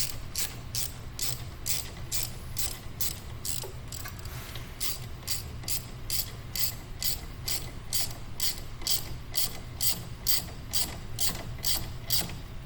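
Hand ratchet clicking in a steady rhythm, about three clicks a second with a short pause about four seconds in, as it is swung back and forth to tighten the brake line bracket bolt.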